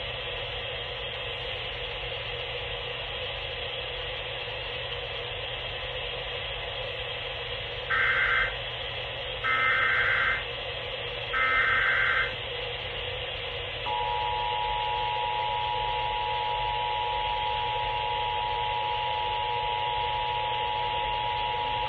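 Emergency Alert System test received over the radio: three short SAME header data bursts of about a second each, then the steady two-tone EAS attention signal, all over a constant radio hiss.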